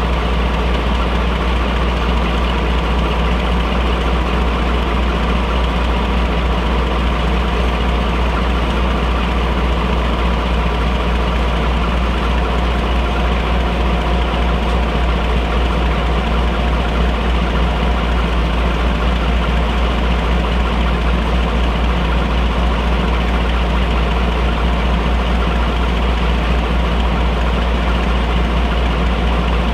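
Class 42 Warship diesel-hydraulic locomotive D821's twin Maybach V12 diesel engines idling steadily at a standstill, with a deep, even hum.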